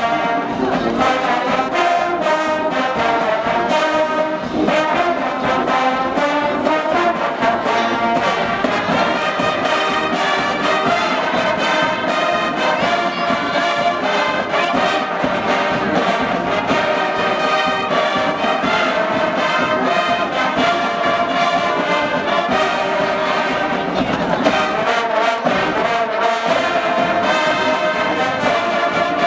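Marching band brass playing a tune without a break, trombones and trumpets sounding full chords.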